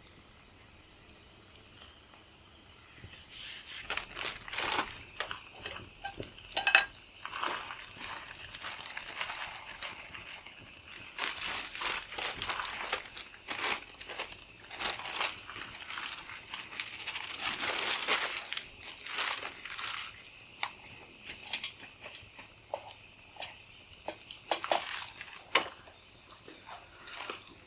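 Crinkling and rustling of hands handling food and cooking gear, with many scattered sharp clicks and crackles. It starts about three seconds in and comes in irregular spells.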